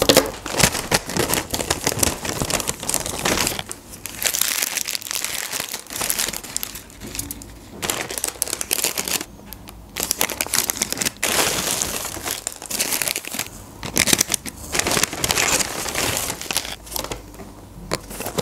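Paper food wrappers, a paper takeaway bag and cardboard burger boxes crinkling and rustling as McDonald's food is unpacked, in irregular bursts with brief lulls.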